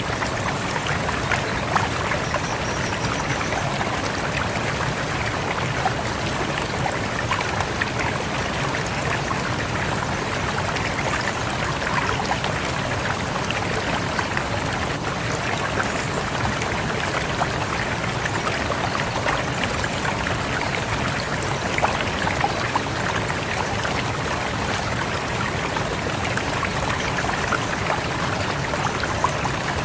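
Rushing river water flowing steadily, an unbroken rush with many small splashes throughout.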